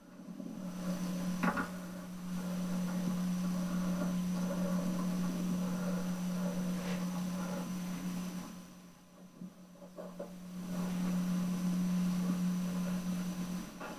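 A steady low hum that fades out for about two seconds two-thirds of the way through, with a few light clicks over it, the sharpest about a second and a half in.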